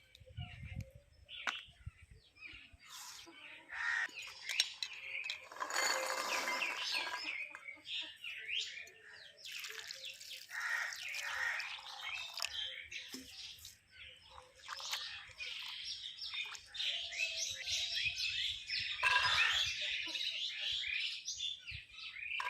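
Small birds chirping over and over in short, quick calls, with a louder, fuller call about six seconds in.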